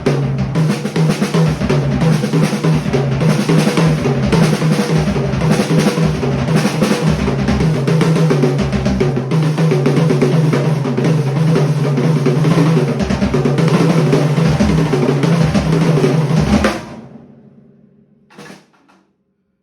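A drum kit played in a dense, continuous pattern of rapid strokes that stops abruptly about seventeen seconds in, leaving the drums to ring out; one faint knock follows shortly after.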